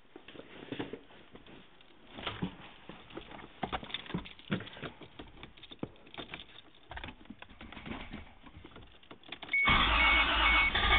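Light scattered clicks and knocks, then about ten seconds in the starter motor begins cranking the freshly rebuilt Toyota 7M-GE 3.0-litre inline-six on its first start attempt, loud and steady, with a rapid high beeping alongside.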